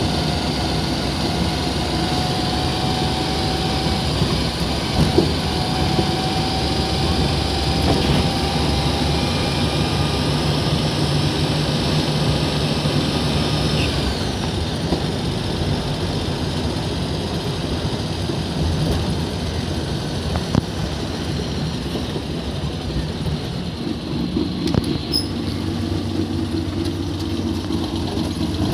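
Car engine and road noise heard from inside the cabin of a moving car, a steady rush with an engine hum that shifts in pitch about halfway through and again near the end.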